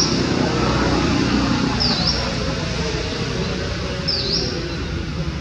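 A bird calling three times, about two seconds apart: each call is a short, high note that dips and then rises in pitch. It sounds over a steady background hiss.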